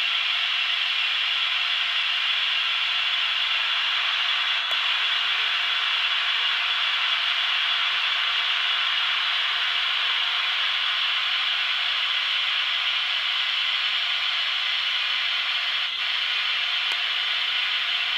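Steady hiss from the small speakers of the sound-equipped Märklin model Swiss electric locomotives.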